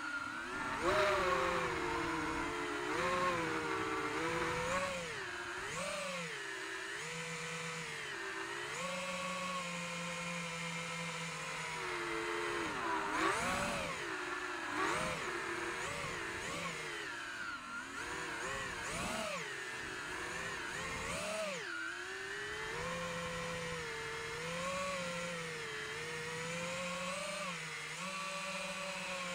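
A 5-inch FPV quadcopter's brushless motors and propellers whining as it flies, heard from the onboard camera; the pitch swoops up and down constantly as the throttle is punched and eased through turns and dives.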